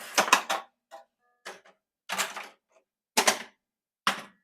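Williams Big Guns pinball machine powering up: its solenoids and relays clack in short clusters, about six groups of sharp mechanical clicks, with a brief faint beep about a second in.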